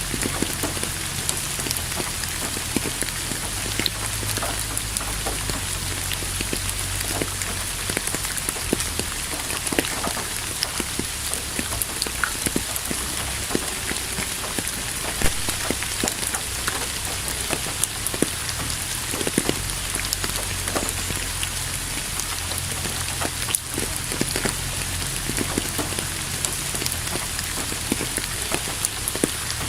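Steady rain falling, with a dense patter of individual drops ticking throughout.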